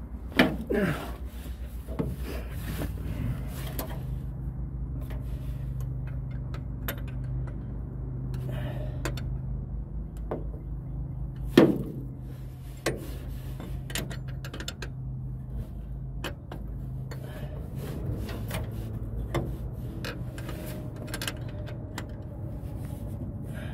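A 5/8 inch wrench tightening a fuel line fitting on a new fuel pump: scattered metal clicks and scrapes, with one sharper clink about halfway, over a steady low hum.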